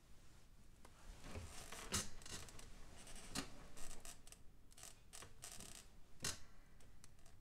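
A person stirring in bed: faint, irregular rustling and scratching of bedding, with several sharper clicks scattered through. No snoring is heard.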